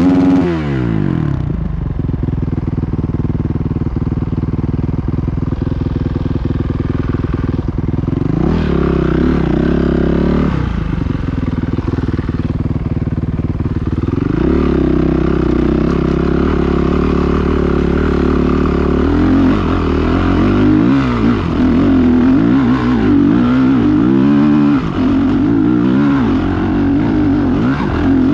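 Dirt bike engine running under the rider: revs fall right at the start and settle to a low steady run, rise about eight seconds in, drop back two seconds later, then pick up again near halfway and keep rising and falling over the last third.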